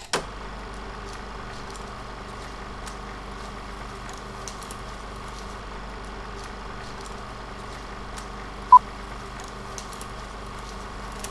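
Vintage film-leader countdown sound effect: the steady hiss and hum of an old optical soundtrack with scattered crackles, opening with a couple of pops. A single short beep sounds about nine seconds in.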